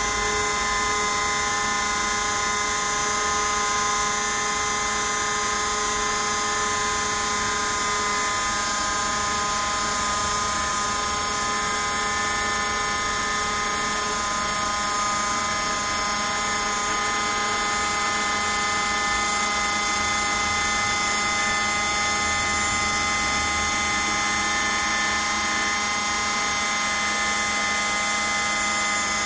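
Small CNC router spindle running at high speed and cutting a white foam block: a steady high-pitched whine made of several held tones over a hiss.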